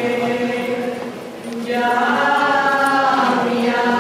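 Voices singing a slow religious chant in long held notes; a new, louder phrase starts a little under two seconds in.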